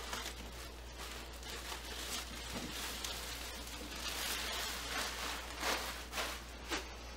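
Thin plastic cover rustling and crinkling as it is pulled off a microscope, with a few sharper crackles in the second half.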